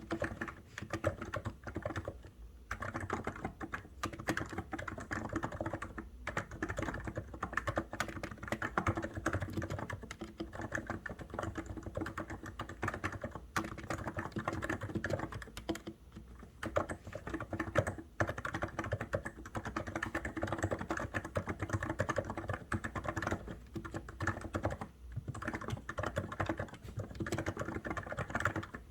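COX Endeavour electrostatic capacitive keyboard being typed on fast and continuously, a dense run of keystrokes with a few brief pauses.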